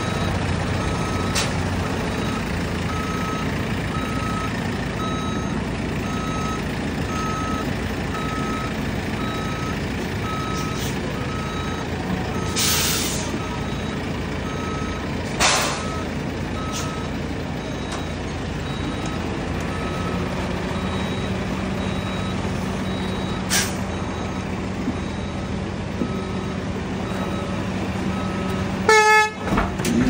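Rough-terrain forklift's diesel engine running, with its reversing alarm beeping about once a second. The beeping stops about two-thirds of the way through, and the engine settles to a steadier hum. Two short hisses come midway, and a brief loud rattle comes near the end.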